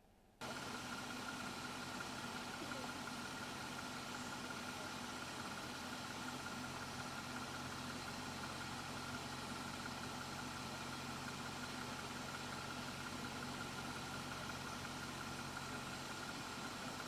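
Jeep Wrangler Rubicon's engine idling steadily, with an even hum that cuts in abruptly about half a second in.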